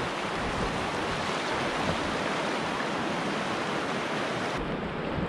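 Steady rushing of river rapids: whitewater running past a packraft. The hiss turns duller abruptly near the end.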